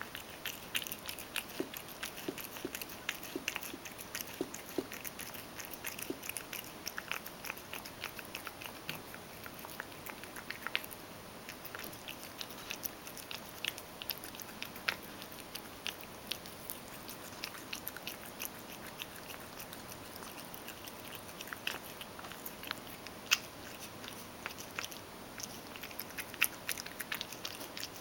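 Ragdoll cat eating crushed dry cat food softened with hot water from a stainless steel bowl: a steady run of quick, irregular chewing clicks and crunches.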